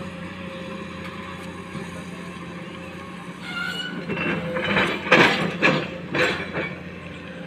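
Diesel engines running steadily. From about three and a half seconds in, a Komatsu hydraulic excavator's bucket digs into the earth-and-stone face, making a run of loud, rough scraping and crunching noises with a brief squeal at the start.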